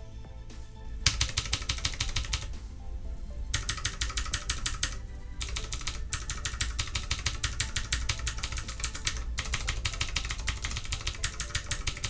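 Typing on a Redragon K552 tenkeyless mechanical keyboard with clicky blue switches and HyperX Pudding double-shot PBT keycaps: fast runs of key clicks starting about a second in, broken by a couple of short pauses. The Pudding keycaps give the clicks a distinctly lower sound.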